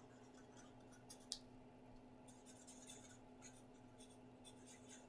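Faint scratching of a marker pen drawing on paper in short, irregular strokes, with one small click about a second in. A low steady hum runs underneath.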